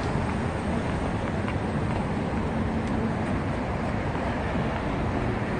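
Steady city street noise: a low, even rumble of road traffic.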